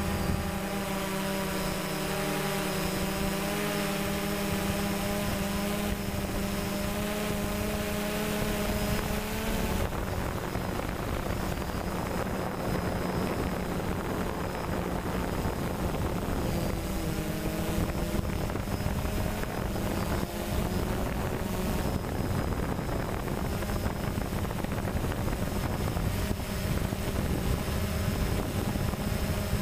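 Electric motors and propellers of a DJI Phantom quadcopter humming steadily in flight, heard from the onboard camera. After about ten seconds wind rushing over the microphone takes over and the hum sinks into it, shifting pitch briefly as the throttle changes.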